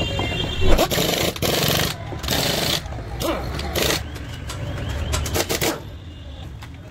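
Pneumatic impact wrench running in several short bursts on a car wheel's lug nuts.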